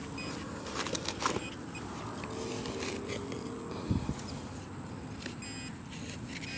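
Handheld metal-detecting pinpointer being worked through a dug hole and the surrounding grass, giving a few short, faint beeps over rustling and scraping of soil and grass. A few clicks come about a second in and a dull knock about four seconds in, over a steady high-pitched whine.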